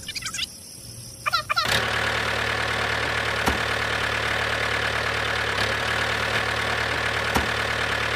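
A few short, high wavering calls in the first second or so, then a steady engine drone sets in for the toy tractor as it drives forward pulling its trailer, with a couple of faint ticks.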